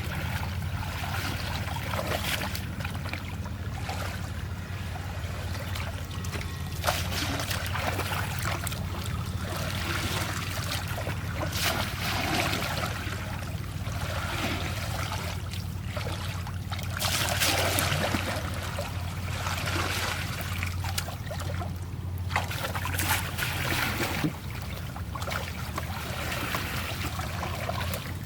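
Water splashing and trickling in uneven swells, over a steady low hum.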